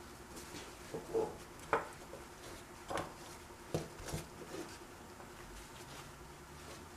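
Light clicks and taps as the metal and plastic parts of a disassembled GM cruise control vacuum servo actuator are handled while leftover dirt is cleaned off them: about six short taps over the first few seconds.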